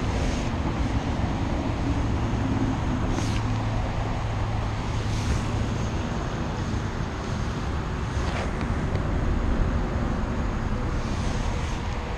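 Steady outdoor background rumble, with a low hum that fades out about five seconds in. A few brief rustles of jacket fabric brush against the body-mounted camera.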